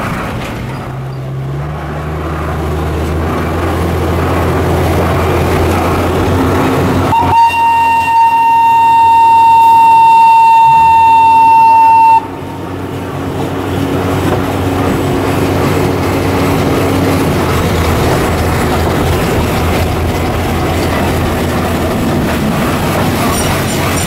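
The Botchan Ressha replica locomotive's diesel engine runs steadily as the train moves. About seven seconds in, its whistle blows one long, steady note for about five seconds and then cuts off.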